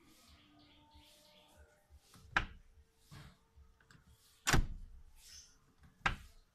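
Car door opening and shutting: three sharp clunks about two seconds apart, the middle one loudest.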